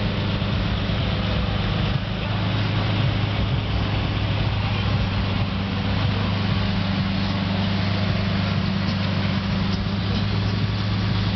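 A car engine idling steadily, a constant low drone.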